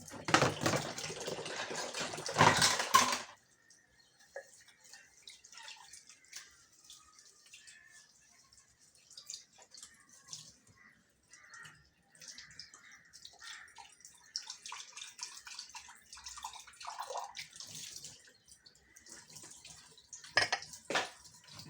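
Tap water running into a kitchen sink for about three seconds, then shut off. Faint splashes, drips and small clinks of dishes being washed by hand follow.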